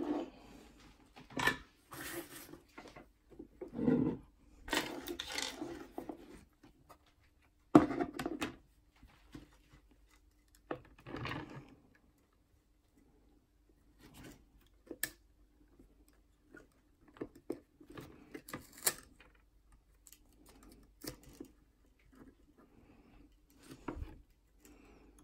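Small handling sounds of tools and wire on a workbench during hand soldering: irregular clicks, taps and brief rubbing, with one sharp click about eight seconds in and sparser light taps later, over a faint steady hum.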